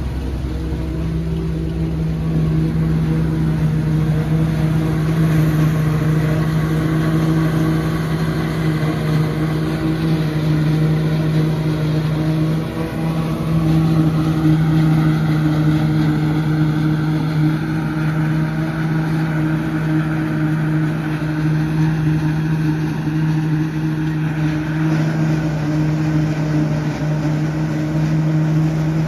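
Tractor engine under load driving a tractor-drawn forage harvester that is chopping standing corn for silage: a loud, steady machine hum that holds one pitch, with a brief dip about 13 seconds in.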